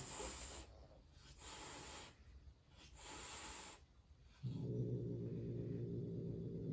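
Turkish Van cat hissing in three short bursts, then growling steadily in a low, continuous growl from about four and a half seconds in: an angry warning at another cat.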